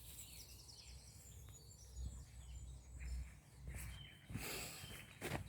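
Woodland birds chirping and singing over a faint, steady low hum of distant motorway traffic, with a short rustle about four and a half seconds in.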